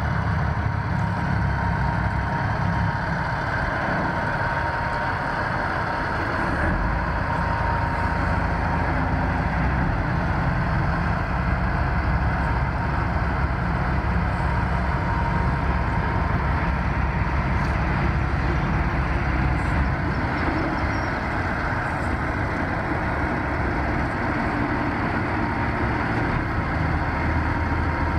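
Heavy diesel engine running steadily: a constant low drone with a faint steady whine above it.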